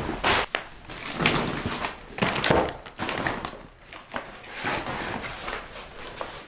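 A thump as a shopping bag is set down on the floor, followed by irregular crinkling and rustling of plastic bags and packaging as decorations are taken out and laid on the rug.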